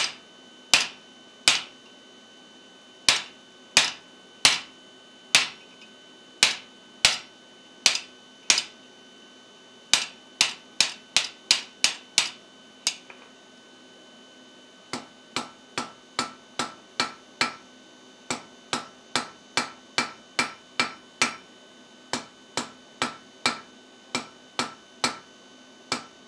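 Hand hammer striking the top of a guillotine tool on the anvil, driving it into a red-hot steel bar: sharp metallic strikes about one to two a second, in runs with a short pause a little past halfway, the later strikes lighter.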